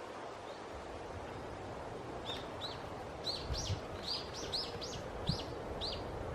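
A small bird calling a quick series of short, arched chirps, about two or three a second, which starts a couple of seconds in and continues almost to the end. Behind it is a steady hiss of wind and rustling, with a few faint low thumps.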